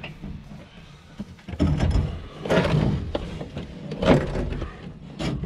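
Heavy metal clunks and scrapes, four or five of them, as an engine hanging from a hoist chain is rocked by hand to free it from the pickup's bell housing.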